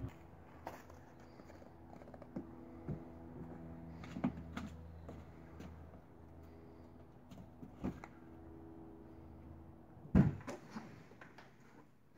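A door being handled: scattered light knocks and clicks over a faint steady hum, with one loud thud a couple of seconds before the end.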